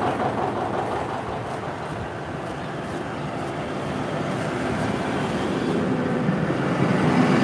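Two-cylinder diesel tractor engine running steadily just after its pony-motor start, growing louder toward the end.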